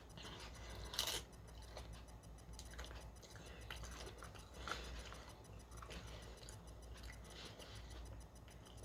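Faint crunching and chewing of potato chips, with one sharper crunch about a second in.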